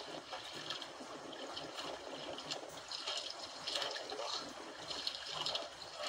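Seawater lapping and splashing against the hull and outriggers of a small drifting outrigger boat, an irregular splashy wash with no engine running.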